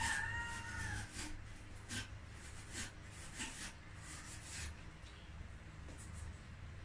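A rooster's crow trails off about a second in. Then come scattered soft clicks and smacks of someone eating by hand from a plate.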